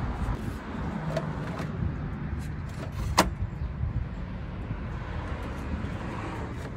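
Hand tools clicking against metal in a car's engine bay during battery removal, with one sharp metallic click about three seconds in, over a steady low rumble.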